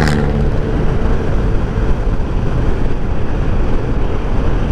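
Yamaha NMAX 155 scooter's single-cylinder engine running at cruising speed, largely buried under steady wind rumble on the microphone, with a brief rush of noise at the start.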